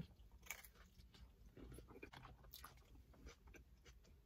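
Faint chewing of a mouthful of steak fajita in a toasted flour tortilla, with scattered soft crunches.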